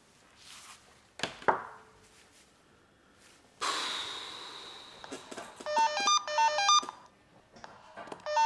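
Office telephone ringing with a fast electronic warbling trill, two short ring bursts near the end. Before that, a single thump about a second and a half in and a sudden hissing crash about three and a half seconds in that fades away over a second or so.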